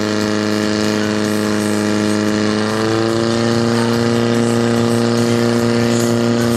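Portable fire pump engine running hard, driving water through the hoses to the jets. Its pitch steps up about three seconds in.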